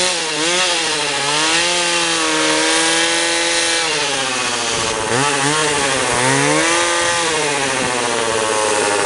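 Small chainsaw running at high revs, its pitch repeatedly dipping and recovering as the chain bites into the wood to cut finger-joint slots.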